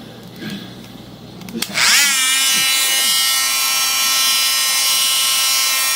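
An electric power tool's motor spins up with a fast rising whine about two seconds in, then runs steadily at a high pitch.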